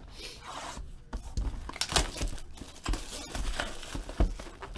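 Crinkling and tearing of packaging, with irregular rustles and clicks, as a 2014 Panini Select football hobby box is unwrapped and opened by hand.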